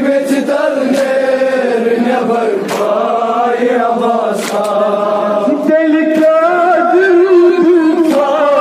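Male voices chanting a noha, a Shia mourning lament, in a long continuous melodic line, with a few sharp slaps cutting through.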